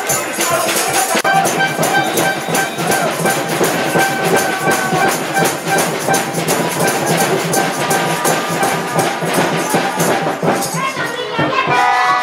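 Music with brass-like horns over fast, rattling percussion, with crowd shouting starting near the end.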